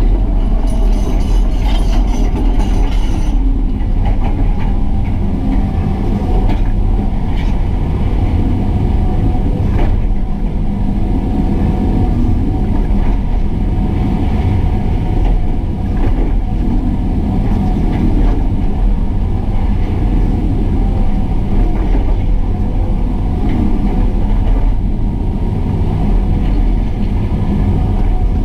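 Excavator's diesel engine running steadily under working load, a heavy low rumble with a few faint knocks.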